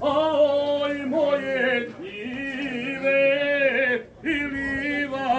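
Dalmatian male folk vocal group singing a cappella in harmony, holding long drawn-out notes between lines of the song, with brief breaks about two and four seconds in.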